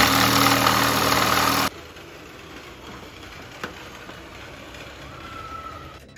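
Electric drill running at high speed, enlarging the mounting holes in a Jeep JK's hood latch mounts. It cuts off abruptly about a second and a half in, leaving a much quieter background with a single click.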